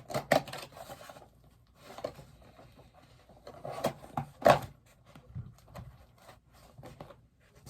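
Cardboard bobblehead box being handled and opened by hand: rubbing and scraping of cardboard with several sharp knocks and taps, the loudest about four and a half seconds in.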